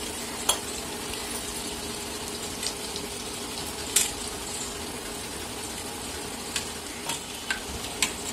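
Sliced onions frying in hot oil in a steel pressure cooker, a steady sizzling hiss, with a steel spoon clinking and scraping against a steel bowl as ground spices are stirred into water. The sharp clinks come now and then, the loudest about four seconds in and several close together near the end.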